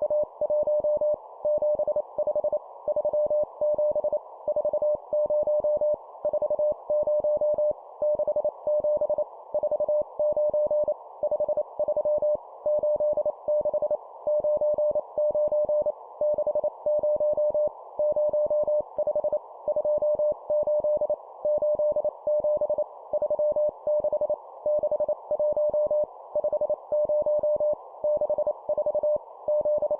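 Morse code sent at 25 words per minute: a steady tone of about 600 Hz keyed into dots and dashes, in short groups of numbers separated by brief pauses, over a faint band of hiss.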